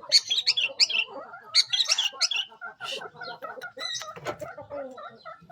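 Long-tailed shrike calling in a rapid run of sharp, scratchy chirps, then a lower, busier chattering through the second half.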